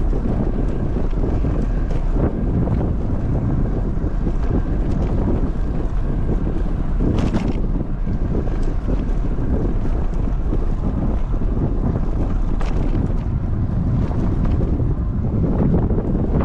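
Steady wind noise buffeting the microphone while riding a bicycle, a continuous low rumble.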